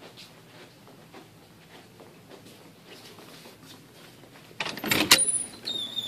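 Footsteps on a hard hallway floor, then about four and a half seconds in the metal push bar of an exit door clacks and the door swings open with a loud clatter, followed by a brief high squeak near the end.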